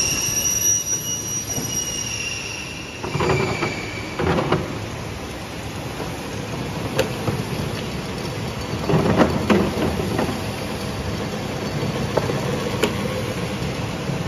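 Wire rewinding machine running as it winds wire from a large spool onto small braiding carriers: a steady mechanical running noise with a high squeal for the first three seconds. Bouts of clattering come twice, with a couple of sharp clicks between.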